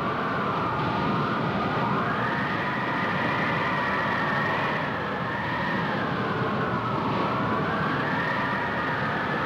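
A wailing, siren-like tone that rises and falls slowly several times, over a steady low rumble.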